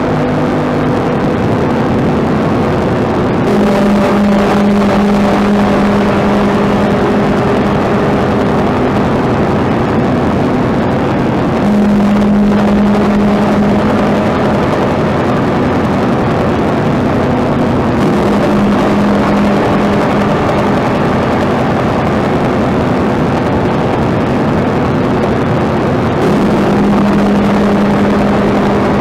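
Ambient noise music: a dense, steady wash of noise with low droning tones underneath that change pitch every seven or eight seconds.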